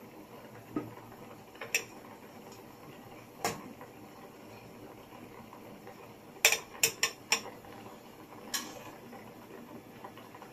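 A metal spatula clinking against the cooking pot and a plate as boiled chicken pieces are lifted out and set down. The clinks are scattered, with a quick run of four about six and a half seconds in.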